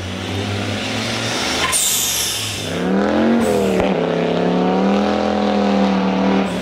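Audi 90 quattro's turbocharged 2.2-litre 20-valve five-cylinder engine accelerating hard as the rally car passes and pulls away on snow: the revs rise, drop at a gear change about four seconds in, then climb again. A short hiss about two seconds in.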